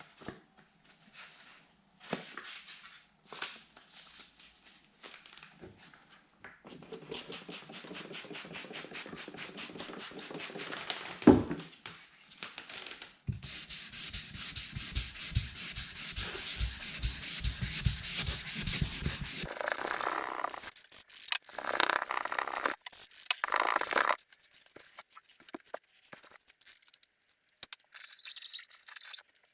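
Fine sandpaper rubbed by hand over car paint in quick, rapid back-and-forth strokes, flattening a deep scratch. A few handling knocks come first, and the sanding ends about two-thirds of the way through with a few slower, louder rubs.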